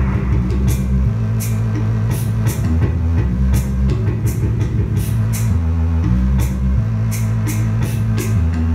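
Rock music with a drum kit: sustained low guitar chords that change every second or so, under cymbal hits about twice a second.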